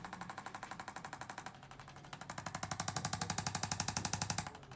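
A handheld percussion device tapping fast and evenly, about ten strokes a second. It softens for a moment, grows louder about two seconds in, and dips briefly near the end.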